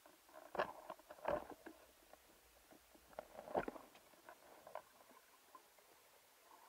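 Underwater sound heard through a diver's camera housing: faint crackling clicks, with clusters of louder knocks and taps about half a second, a second and a third, and three and a half seconds in.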